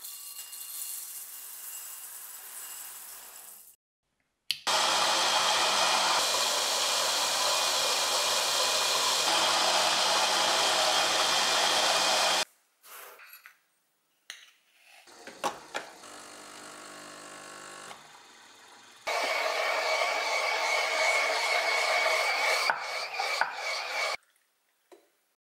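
A run of coffee-making sounds. First a softer hiss, then an electric blade coffee grinder running steadily for about eight seconds and stopping. After a few quieter handling noises, an espresso machine's steam wand hisses and squeals in a jug of milk for about five seconds.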